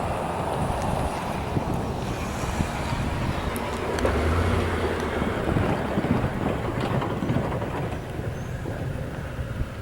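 Steady rumble of an approaching passenger train led by two GE P42DC diesel locomotives, swelling slightly midway, mixed with wind buffeting the microphone.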